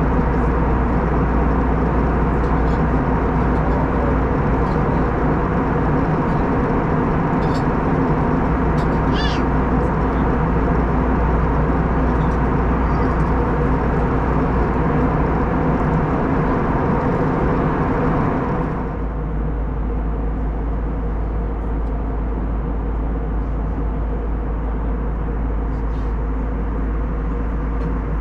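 Airbus A321neo cabin noise in cruise: a steady rush of air over a low engine hum. About two-thirds through, the hiss turns duller and a little quieter; a few faint clicks and a short squeak come near the middle.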